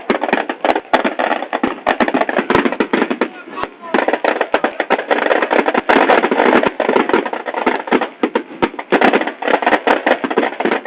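Large São João bonfire burning, with dense, rapid crackling and popping throughout and a short lull a little before the midpoint.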